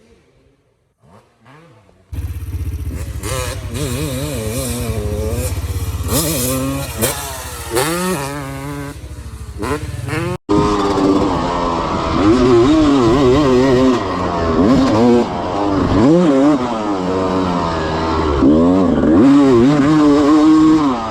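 1996 Honda CR250's single-cylinder two-stroke engine revving up and down, freshly rebuilt and being broken in. It comes in suddenly about two seconds in. After a brief break about ten seconds in it runs louder, its pitch climbing and dropping again and again as the bike is ridden hard.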